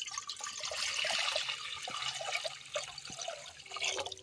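Water being poured into a cooking pot, an uneven splashing and trickling that eases off and picks up again near the end.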